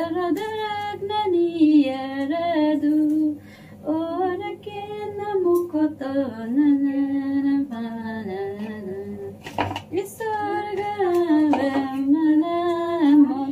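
A woman singing a slow song without accompaniment, holding long notes and gliding between them, with short pauses between phrases.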